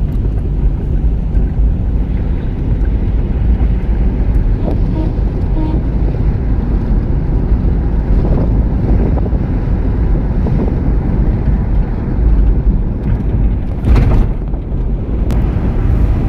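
Steady low rumble of a vehicle on the move, with wind buffeting the microphone. A brief louder knock or rattle comes about fourteen seconds in.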